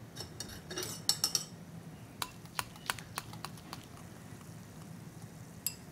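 Spoon stirring hot agar liquid in a glass bowl, clinking against the glass: a cluster of clinks about a second in, then a run of light ticks about three a second, and one more clink near the end.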